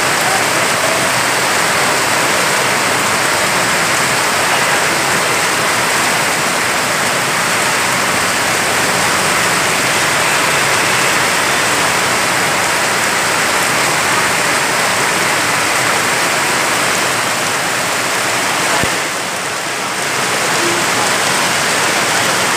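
Heavy rain pouring onto a paved road: a loud, steady hiss of rainfall, dipping briefly in level near the end.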